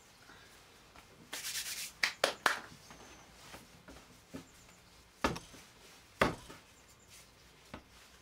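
Yeast bread dough being kneaded by hand: a short rubbing sound, then a few sharp knocks, the loudest about two and six seconds in.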